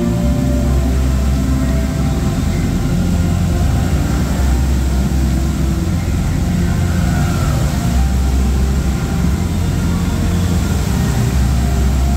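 Bass-heavy show music from a dancing fountain's loudspeakers: a deep, steady rumble with held notes over it, mixed with the rushing hiss of the tall water jets.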